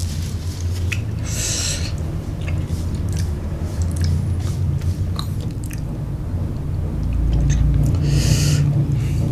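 A person chewing fried rice vermicelli close to the microphone, with small wet mouth clicks, over a steady low hum. There are two short hissy sounds, about a second and a half in and near the end.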